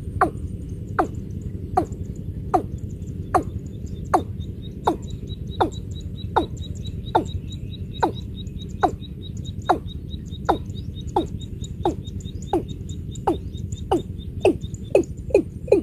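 Watercock calling: a steady series of short, falling notes, about one every three-quarters of a second, coming faster near the end.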